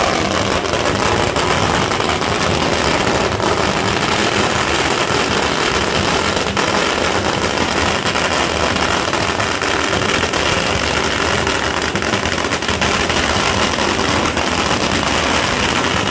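A long string of firecrackers exploding on the pavement, a loud, dense, unbroken rapid crackle of bangs.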